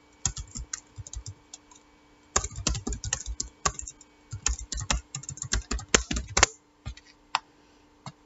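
Typing on a computer keyboard. A few keystrokes come first, then a short pause about two seconds in, then a fast run of keystrokes. It tails off to a couple of single clicks near the end.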